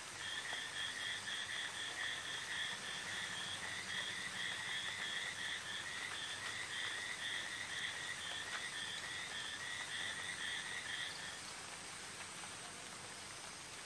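A small calling animal's trill: a rapid string of short, high chirps, about four a second, that stops about eleven seconds in.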